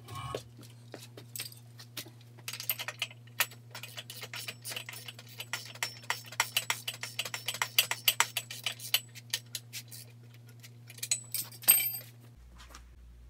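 Ratchet wrench clicking in quick runs of metal clicks while tightening nylock nuts on bolts, with a few last clicks near the end.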